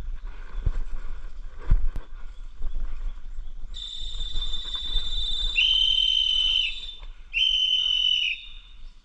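Whistles blowing: a long, steady high blast starts about four seconds in, and a second, lower whistle joins it in three blasts of about a second each.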